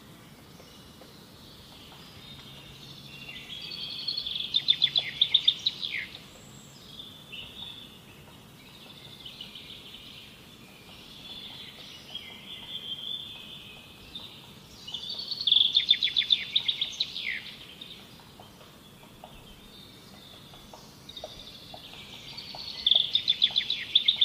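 A bird singing outdoors. It gives three loud, rapid trilled phrases, each ending in a quick falling note, with softer warbling notes between them over steady background ambience.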